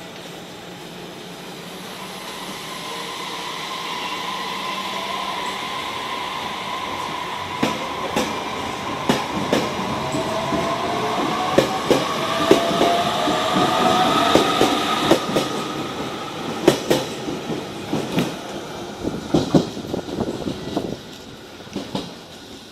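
Electric multiple-unit train accelerating along the track, its motor whine slowly rising in pitch, with rapid clacks of the wheels over rail joints through the middle and latter part before the sound fades.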